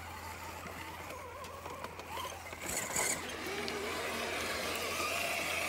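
Electric motor and gears of a scale RC rock crawler whining as it drives, the pitch wavering up and down with the throttle, with a brief scratchy noise about three seconds in.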